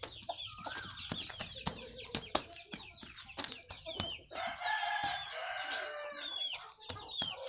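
Chickens clucking and chirping in short calls, with a rooster crowing once in a long call of about two seconds midway, over scattered sharp knocks.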